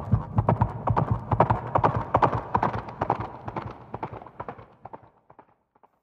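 Horse hoofbeats: a quick run of clopping strikes that fades away and stops about five and a half seconds in.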